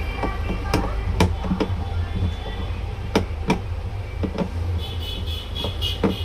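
Scattered sharp clicks and knocks of tools and plastic parts as a child's electric scooter is being opened up to get at its battery, over a steady low hum.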